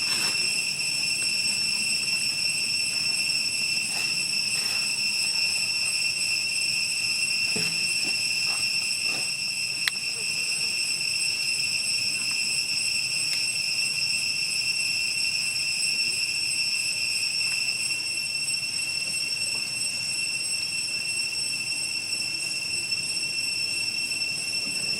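Steady, unbroken high-pitched insect drone, with a few faint clicks and knocks, one sharper click about ten seconds in.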